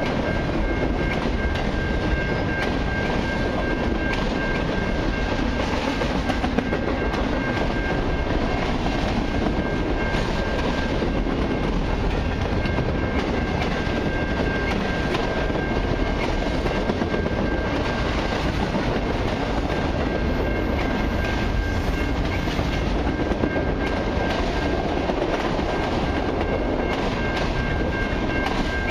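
Autorack freight cars rolling past: a steady rumble of steel wheels on rail, with frequent clicks as the wheels cross rail joints. A thin, steady high tone runs through it.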